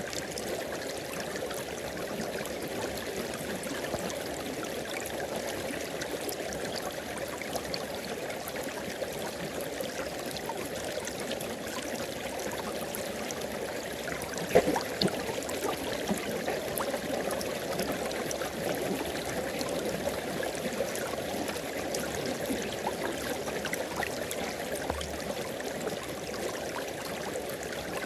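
River water flowing and babbling steadily over rocks, with one brief louder splash about halfway through.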